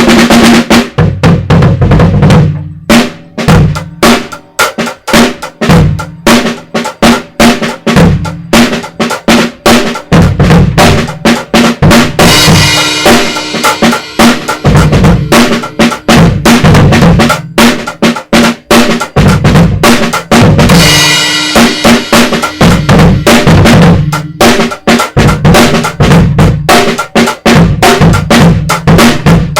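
Mini drum kit with an 8½×13 snare, a 16×18 floor tom and two 12-inch Sabian splashes stacked as a hi-hat, playing a steady groove. Cymbal crashes ring out about twelve and about twenty-one seconds in.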